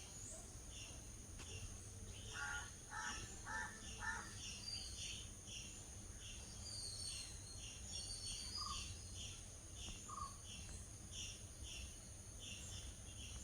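Birds calling: a short chirp repeated about twice a second, a run of four harsh calls about two and a half seconds in, and a few higher, thinner calls, over a steady high-pitched insect drone.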